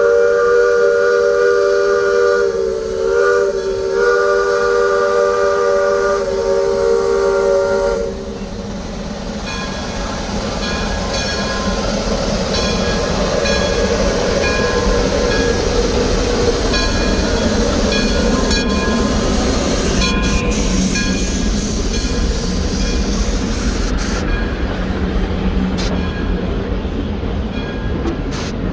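Steam locomotive whistle blowing one long chord of several notes, dipping briefly twice, then cutting off about eight seconds in. The train then runs with a steady rumble and hiss, with short ringing tones repeating at fixed pitches.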